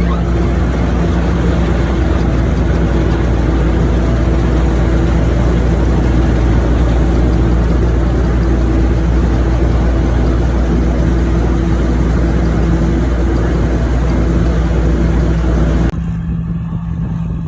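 A motor engine running steadily under load, with a dense rushing noise over it; about sixteen seconds in the sound cuts off abruptly to a quieter engine.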